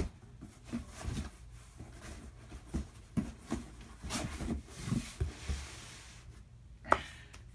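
Scattered light knocks and rubbing, handling noise close to the microphone, with a sharp click at the start and another near the end.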